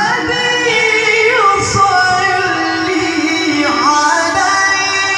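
A qari's high male voice reciting the Quran in melodic tilawah style through a microphone and PA. It is one long held phrase with ornamented pitch turns, about a second and a half in and again near four seconds.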